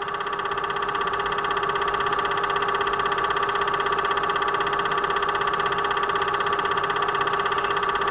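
Film projector running: a steady whirr with a fast, even clatter, growing louder over the first second or two.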